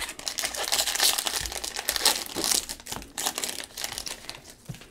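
A plastic trading-card pack wrapper crinkling as it is torn open and handled, a dense run of crackles that thins out about four seconds in.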